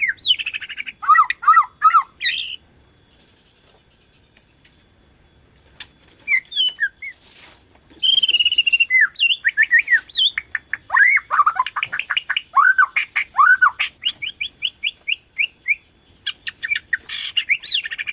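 Murai batu Borneo (Borneo-type white-rumped shama) singing loudly in full song ('gacor'). Rapid, varied whistled phrases with runs of quick repeated slurred notes, broken by a pause of about three seconds early on.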